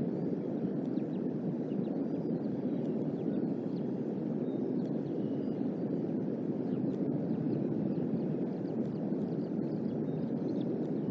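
Strong wind gusts buffeting the outdoor nest-cam microphone: a steady low rush of wind noise.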